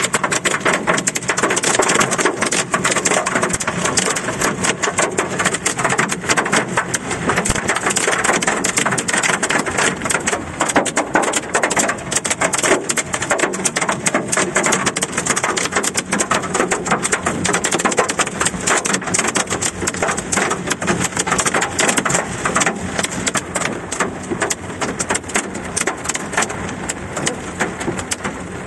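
Hailstones hitting a car's roof and windshield, heard from inside the cabin: a dense, constant rattle of countless small impacts that eases a little near the end.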